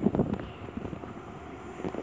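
Freight train with an electric locomotive approaching: a steady low rumble, with a few sharp handling clicks right at the start.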